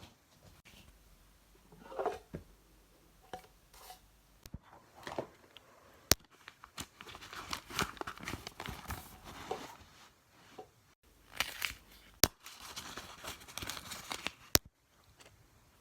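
Paper being handled, crinkling and rustling in irregular bursts, with three sharp clicks or taps standing out above it.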